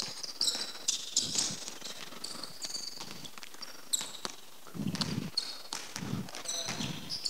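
Basketball shoes squeaking again and again on a hardwood court while a basketball is dribbled, with heavier bounces about five, six and seven seconds in.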